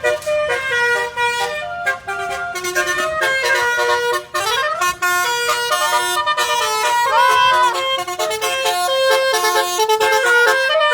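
Telolet basuri multi-tone bus horn playing a tune: a run of changing horn notes, several sounding together, with a rising glide about four seconds in.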